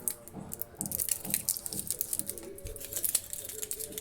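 Crunchy toffee crunching, with a quick, irregular run of sharp crisp crackles and softer dull crunches underneath.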